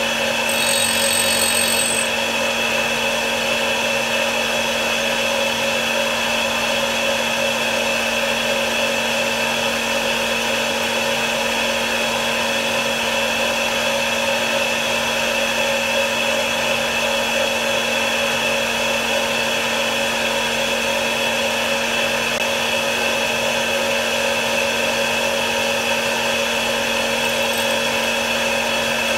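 Homemade tool grinder's motor running steadily, spinning a diamond cup wheel while the cutting edges of a countersink are ground against it to reduce their relief. An extra high whine sounds for the first couple of seconds.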